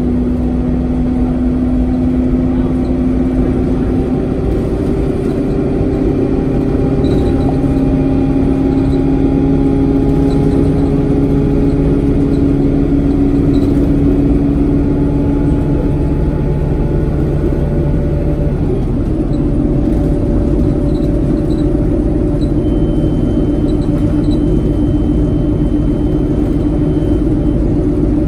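Alexander Dennis Enviro 200 single-deck bus heard from inside at the rear: its diesel engine and drivetrain run under load over a constant rumble of road noise. A humming tone climbs slowly as the bus pulls, drops back briefly past the middle, then holds steady.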